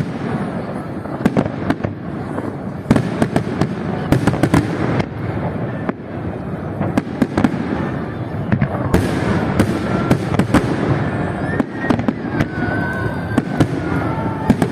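Fireworks display: a dense, continuous crackle of bursting shells punctuated by many sharp, irregular bangs.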